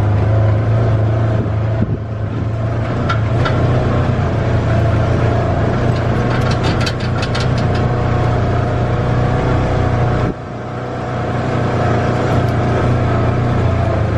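Polaris Ranger side-by-side utility vehicle running under way, its engine a steady low drone. About ten seconds in the engine note drops suddenly, then climbs back up.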